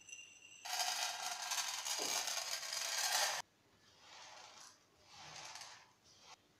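Dry vermicelli noodles poured into an oiled nonstick frying pan, a loud dense rattle lasting under three seconds that cuts off suddenly. Then a silicone spatula stirs and scrapes the noodles around the pan in two softer strokes.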